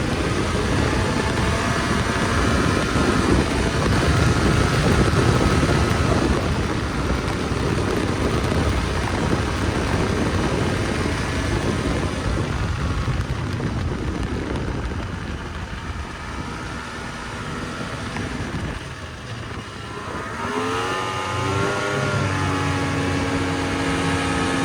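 Snowmobile engine running under way, mixed with a dense rushing noise. The engine eases off about two-thirds of the way through, then revs up near the end with a rising, wavering pitch.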